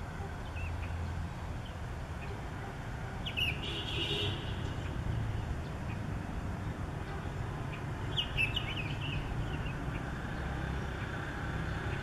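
Sooty-headed bulbul singing short bursts of quick, bubbly chirped phrases, twice: about three and a half seconds in and again about eight seconds in, with a steady low rumble of distant traffic underneath.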